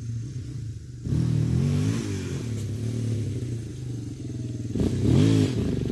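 Yamaha Warrior 350 ATV's single-cylinder four-stroke engine running under throttle as it rides across grass toward the listener, newly fitted with a fresh carburetor. The throttle opens about a second in, and the engine revs up and back down again, loudest about five seconds in.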